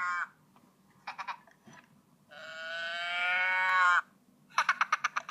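A high-pitched Minion cartoon voice playing from a BlackBerry phone's speaker. Short rapid chatter comes about a second in, then one long drawn-out call that dips in pitch as it ends, then a quick run of short stuttering syllables near the end. It is part of a regularly repeating loop.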